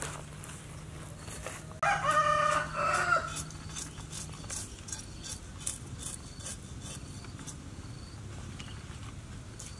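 A rooster crows once, starting about two seconds in and lasting just over a second. Behind it, a steel cleaver scrapes over a large fish's skin in repeated short strokes, stripping off the scales.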